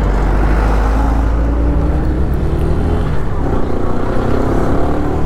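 Motorcycle engine running steadily at riding speed, under a heavy low rumble of wind buffeting the microphone and road noise.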